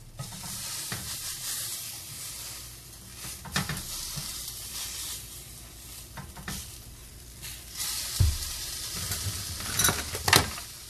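Fish frying in a hot nonstick pan, a steady sizzle. Kitchen tongs scrape and knock against the pan as they pry at fish pieces that are breaking apart, with several sharp knocks that are loudest near the end.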